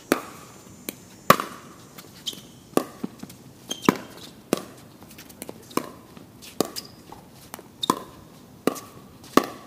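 Pickleball rally: paddles striking the plastic ball back and forth, a string of sharp pops about every half second to second, around a dozen in all.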